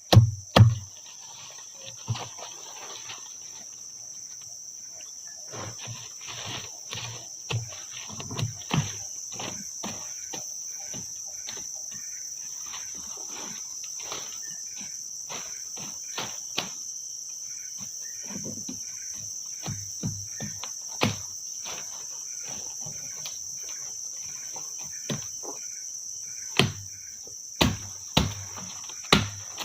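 Steady high-pitched drone of a forest insect chorus (crickets or cicadas), with irregular knocks and thumps over it in clusters.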